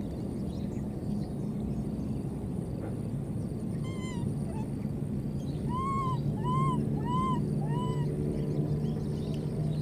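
Baby macaque giving short, arched coo calls: a faint one about four seconds in, then four in a row, each about two-thirds of a second apart. Under the calls is a steady low hum that grows stronger toward the end.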